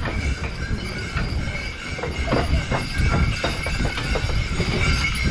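Hooves of a two-horse team clip-clopping through snow as they pull a sleigh, over a steady low rumble, with a faint steady ringing of sleigh bells.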